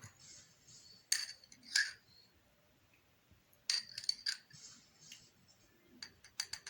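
Kitchenware clinking: sharp clinks and taps of utensils against glass and metal containers, a couple about a second in, a cluster around four seconds and several more near the end, some with a short ring.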